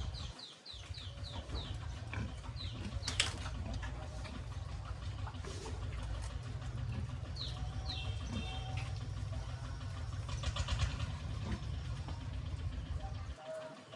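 A bird chirping, a quick run of short falling notes near the start and a couple more about halfway through, over a steady low rumble with a few scattered clicks.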